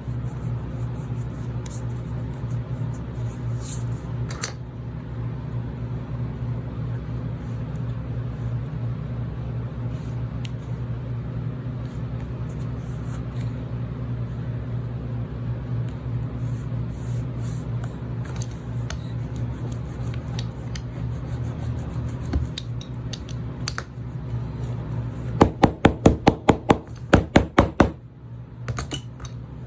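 A steady low hum with occasional faint clicks of handling. Near the end come about ten quick, sharp taps of a hammer on leather, about four a second, lightly hammering a freshly glued leather joint flat.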